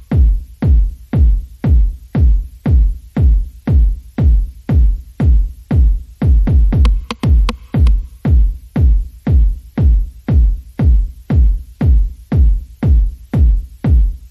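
Electronic background music with a steady kick-drum beat, about two beats a second.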